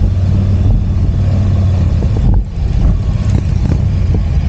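Touring motorcycle engine running at low speed, a steady low rumble. The throttle is briefly rolled off about halfway through, then the engine picks up again.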